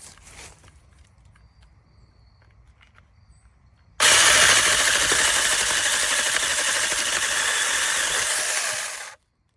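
Battery-powered mini chainsaw running: a loud, steady buzz of motor and chain that starts abruptly about four seconds in, after some faint handling rustles, and runs for about five seconds before cutting off sharply.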